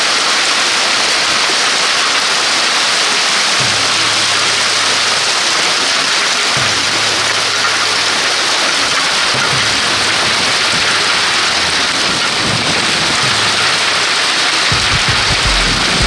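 Heavy downpour of rain mixed with ping-pong-ball-sized hail, hammering down in a dense, steady hiss. Low thumps come near the end.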